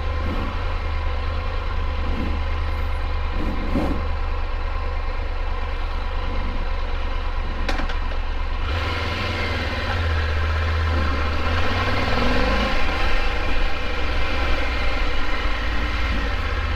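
Triumph Tiger 1200 motorcycle's three-cylinder engine idling steadily, a little louder from about nine seconds in. The idle sits slightly high after the throttle body cleaning, which the mechanic says will settle once the ECM relearns.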